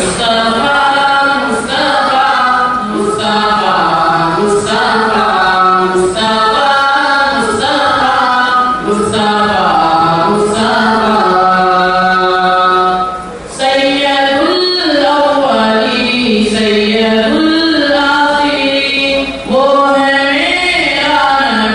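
Boys singing a naat, a devotional song in praise of the Prophet, into microphones: a lead voice holding long melodic lines, with other voices joining, and two short breaks between lines.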